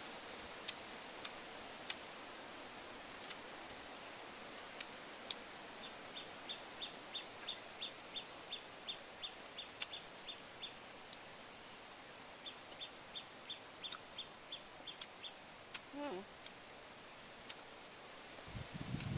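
Outdoor forest ambience: a bird gives a rapid, evenly spaced series of high chirps, about four a second, in two runs, over a steady hiss, with scattered sharp clicks.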